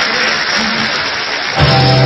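Live rock band with electric guitars and bass: after a steady noisy wash of crowd and stage noise, the band comes in suddenly with loud held guitar and bass notes about one and a half seconds in.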